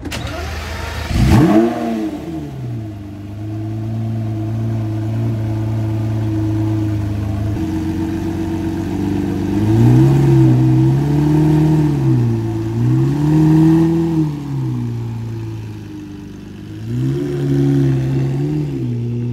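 Lamborghini Murciélago V12 starting up about a second in with a sharp rev flare, then settling to a steady idle. It is then revved three times, rising and falling each time, the last as the car pulls away.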